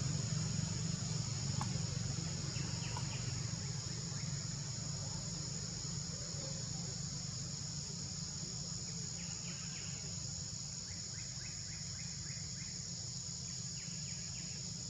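Steady high-pitched drone of insects in a forest, over a low steady hum, with short runs of quick chirps a few times, mostly in the second half.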